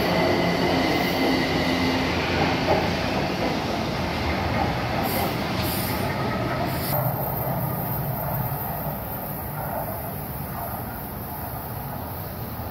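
São Paulo Metro train running through an underground station, with a high whine and wheel squeal for the first few seconds, then a steady rumble that slowly fades.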